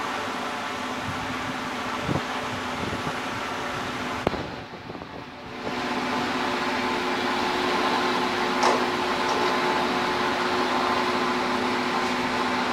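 Shrink-wrapping machine's heat tunnel and roller conveyor running: a steady rush of air with a low hum. The sound drops for about a second and a half near the middle, then comes back, with a few light knocks.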